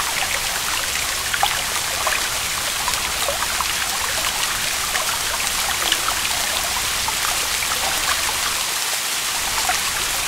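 Heavy rain falling steadily: a dense hiss flecked with scattered drops splashing.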